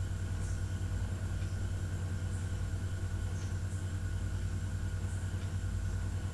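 Steady low background hum with a few faint short ticks.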